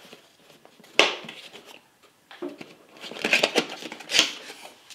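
Cardboard packaging being handled: a sharp tap about a second in, then rustling and scraping as a cardboard insert is worked out of its box, with a short knock near the end.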